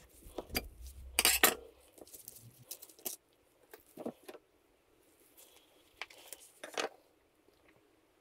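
Metal clinks and knocks of a seal-fitting tool being unscrewed and lifted off a Rohloff Speedhub, its steel parts knocking together. The loudest clinks come in a quick cluster about a second in, followed by scattered single clicks.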